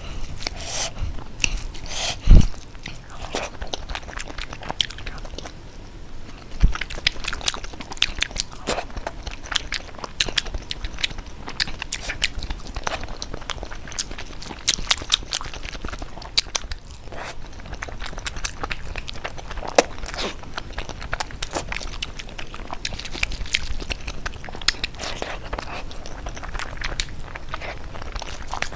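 Close-miked crunchy biting and chewing of food, a dense irregular run of sharp crackling crunches, with one loud bite about two seconds in.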